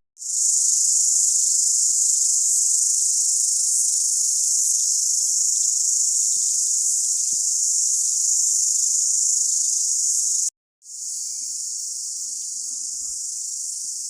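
Steady, high-pitched buzzing chorus of insects in the bush. It cuts out for a moment about two-thirds of the way in, then carries on a little quieter.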